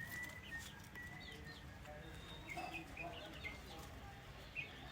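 Faint, scattered bird chirps: short high notes here and there over a quiet background.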